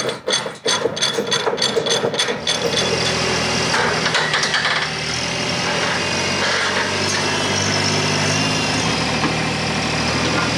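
A ratchet chain load binder is cranked in a quick run of metallic clicks, about five a second, for the first two and a half seconds. Then a TYM compact tractor's diesel engine runs steadily.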